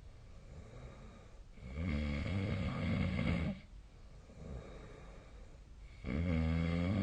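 A sleeping person snoring: two loud snores, each about two seconds long and a little over four seconds apart, with quieter breathing between them.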